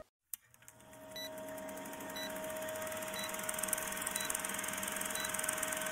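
Old film-projector countdown-leader sound effect: the projector runs with a fast clatter and a steady hiss, and a short high beep sounds about once a second. It fades in after a moment of silence.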